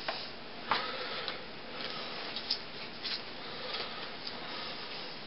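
Scattered light clicks and taps over a steady hiss, irregularly spaced, the sharpest about a second in.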